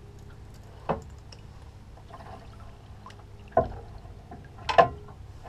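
Water slapping against the side of a fishing boat in three short, sharp splashes, the last the loudest, over a steady low hum.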